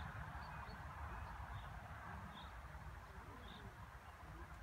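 Faint outdoor background with a steady low rumble, and small high bird chirps at irregular intervals.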